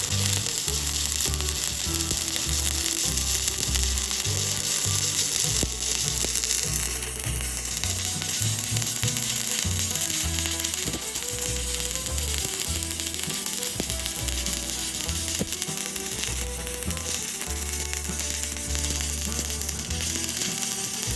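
Stick-welding arc crackling and sizzling steadily as a bead is run on steel plate, over background music.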